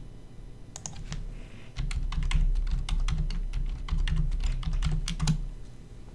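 Typing on a computer keyboard: an irregular run of key clicks starting about a second in and stopping a little before the end, with a low rumble beneath the keystrokes.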